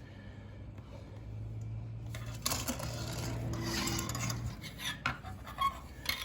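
Plastic model-kit parts on their sprues being handled and shifted in the box, rustling and clattering against each other, with scattered sharp clicks toward the end.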